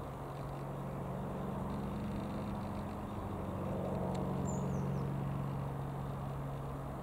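Britten-Norman Islander (Romaero-built BN-2B-26) flying overhead, its twin Lycoming O-540 piston engines and propellers giving a steady low drone that swells slightly about four seconds in.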